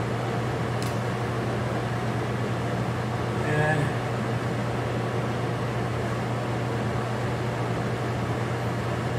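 Steady low mechanical hum with an even hiss, with no rifle shot. A brief faint voice comes about three and a half seconds in.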